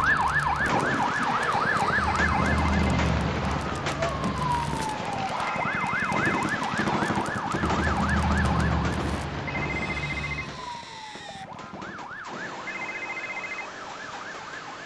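Emergency-vehicle siren in fast yelp mode, its pitch sweeping up and down about four times a second, in three bursts, each after a short falling tone. A deep rumble lies underneath until about ten seconds in, and the last burst is quieter.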